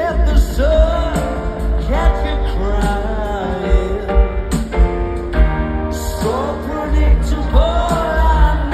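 Live rock band through a stadium PA: a male lead vocal over guitars, keyboards and drums, with heavy bass, heard from among the crowd.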